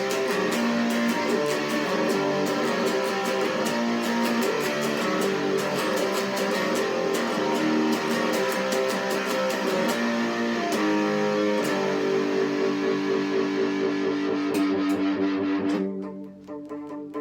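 Electric guitar played through an amplifier: a busy run of picked and strummed notes and chords, moving to longer ringing chords after about eleven seconds. The chords die down near the end before the playing picks up again.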